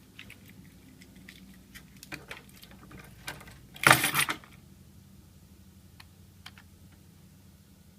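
Scattered small clicks and rattles of hand-handled hardware, with a louder clatter about four seconds in and a few faint clicks later, over a faint steady hum.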